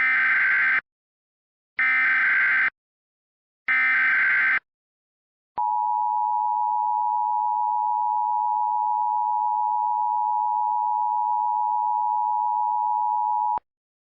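Emergency Alert System tones: three short buzzy bursts of SAME digital data (the header of a new alert), then the two-tone EAS attention signal (853 and 960 Hz) held steady for about eight seconds before cutting off.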